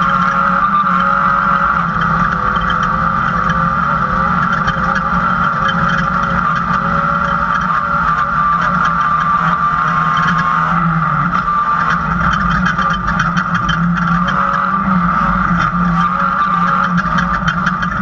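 Off-road race car's engine running steadily at speed, heard from inside the cockpit, with constant rattling and clatter as it drives over rough dirt.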